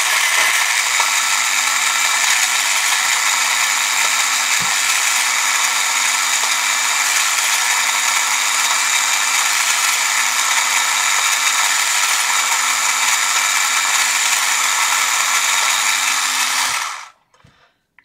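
Small 3-volt motor of a toy robot vacuum cleaner running, spinning its fan and gears with a steady whir; it cuts off suddenly about 17 seconds in.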